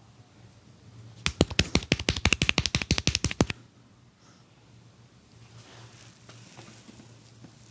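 A barber's hands striking quickly in percussive massage (tapotement), about ten sharp slaps a second for a little over two seconds, starting about a second in.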